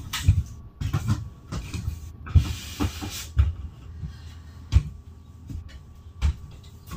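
Irregular knocks and thumps of close handling, with a brief rustling scrape about two and a half seconds in, as work goes on fitting a rubber slide seal along the top of a camper slide-out.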